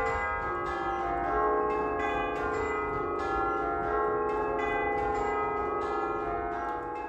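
A church peal of eight tubular bells, dating from 1849, struck by rope-pulled hammers. It rings a run of notes at two to three strokes a second, each note ringing on under the next.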